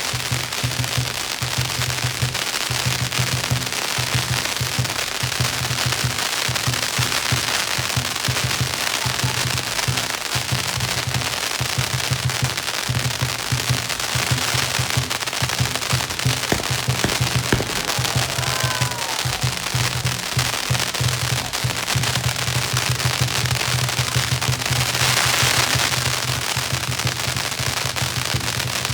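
A long string of firecrackers going off in a continuous rapid crackle of bangs.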